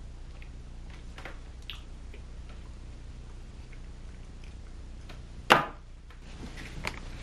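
A few faint clicks over a steady low hum, with one sharp click or knock about five and a half seconds in.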